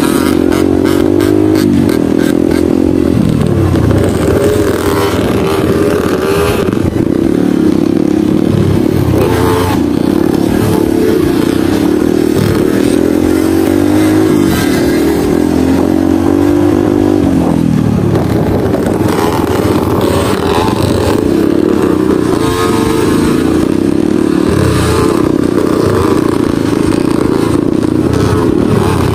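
Small 50cc dirt bike engines running hard in a group, a steady buzz whose pitch drops and climbs back again several times as the throttle is closed and reopened.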